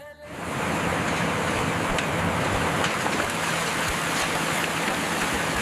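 A steady, loud rushing noise, like wind or rushing air, that starts suddenly just after the beginning, with a faint low hum underneath.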